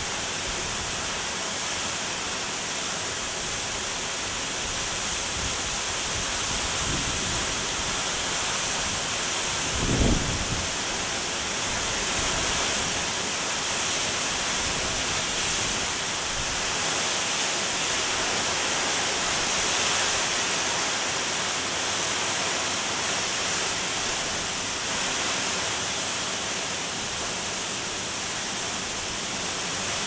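Waterfall falling onto rocks and into a pool: a steady rushing hiss of water, with a brief low thump about ten seconds in.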